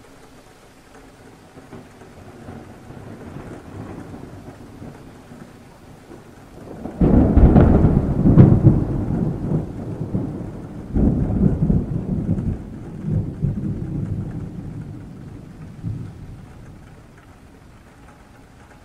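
Thunder over rain. A low rumble builds, then a loud clap breaks about seven seconds in and rolls on in several further peals before dying away.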